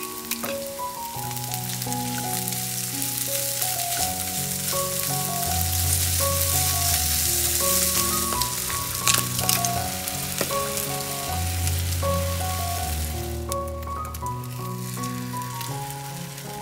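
Food sizzling and frying in a hot pan, the sizzle swelling in the middle with a few sharp crackles about nine seconds in, over background music.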